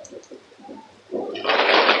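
Thunder: a low rumble, then about a second and a half in a sudden loud crackling thunderclap.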